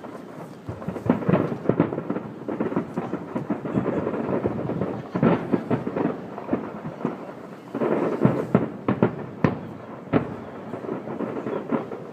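Aerial firework shells bursting over a harbour, a rapid run of bangs with rolling echoes. The bangs come thickest about a second in, around five seconds in, and again from about eight to ten seconds in.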